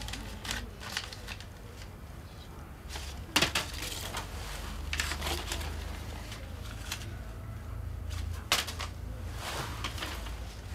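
A sheet of paper rustling and crinkling as it is handled and folded into a paper airplane, in short irregular crackles. Two sharper snaps stand out, one a few seconds in and one later on.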